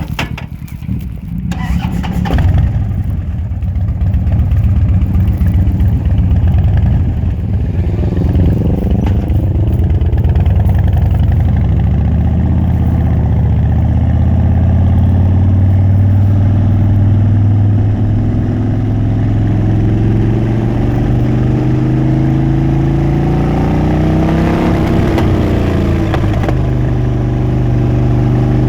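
Harley-Davidson Dyna Switchback V-twin engine starting about two seconds in, then running loud as the bike pulls away, its pitch climbing, dropping back and climbing again as it accelerates.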